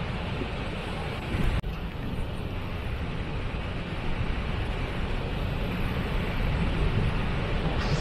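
Steady roar of rushing, falling water from a large waterfall, heaviest in the low rumble, with an abrupt cut about one and a half seconds in before the roar carries on.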